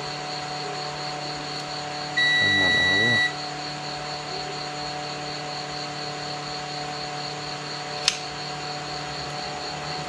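Multimeter continuity beeper sounding one steady high beep for about a second, about two seconds in, signalling a closed circuit through the power strip's switch. A single sharp click near the end.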